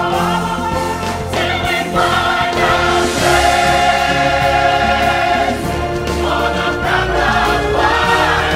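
Music with a choir singing held notes over instrumental backing.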